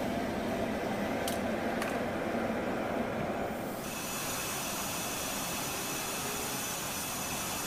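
Steady jet engine noise from fighter jets running on a flight line: a continuous rush that turns brighter about four seconds in, with a faint high whine.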